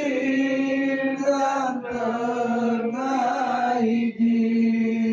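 Islamic devotional chanting (shalawat) in long, drawn-out held notes. The pitch steps down slightly about two seconds in, and the line breaks briefly twice.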